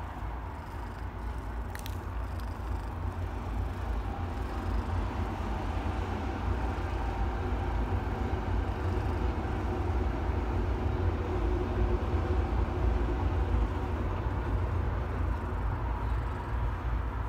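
Black Scottish Fold cat purring, a steady low rumble that grows a little louder, with the scratchy rustle of a brush through its fur.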